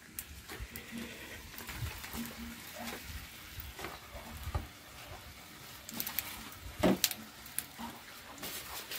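Faint crackling and sizzling from a wood cooking fire under cast-iron pans, with scattered clicks and a few louder rustles about six to seven seconds in as a banana leaf is laid over the rice pan to cover it.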